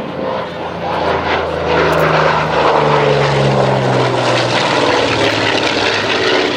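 Twin-engine propeller warbird's piston engines droning on a low pass, growing louder over the first two seconds, then sinking slowly in pitch as the plane goes by.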